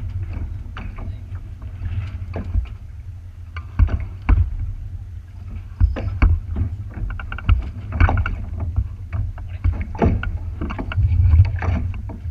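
Water slapping and knocking irregularly against a small boat's hull, over a steady low wind rumble on the microphone.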